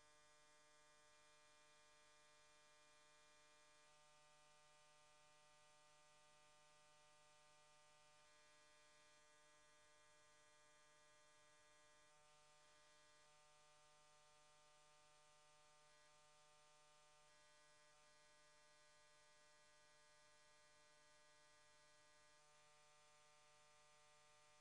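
Near silence with a faint, steady electrical hum and buzz.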